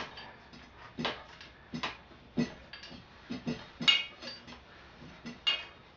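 Irregular metal knocks and clanks, about ten in six seconds, some ringing briefly: tools striking and working a stuck bicycle seat post to force it out of the frame.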